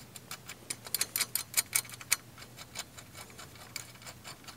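Light metallic clicks and ticks from the bolts of a metal mast mount bracket being turned and tightened by hand, several a second and irregular, thinning out after about two seconds.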